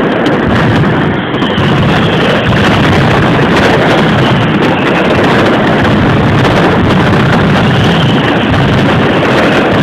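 Mascletà firecrackers and aerial salutes going off in a rapid barrage, the bangs running together into one loud, steady roar.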